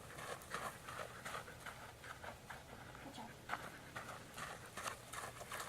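Faint, irregular patter of steps on the floor: a dog's paws and a person's feet as she walks backwards with the dog following.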